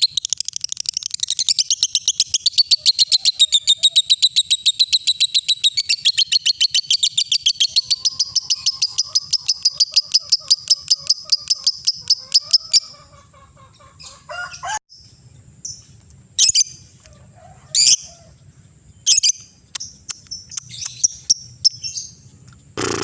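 Lovebird ngekek: a long, fast, unbroken string of high chirps that stops about halfway through. Scattered single chirps follow, then a louder sudden burst near the end.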